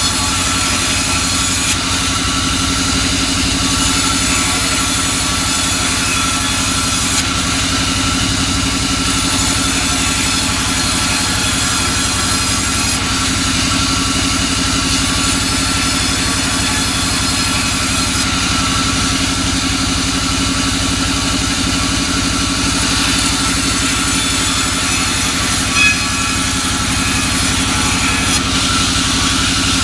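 Vertical band saw mill running with a steady machine hum, its blade sawing soft albasia (sengon) wood as slabs are pushed through; the high hiss of the cut rises and falls every few seconds.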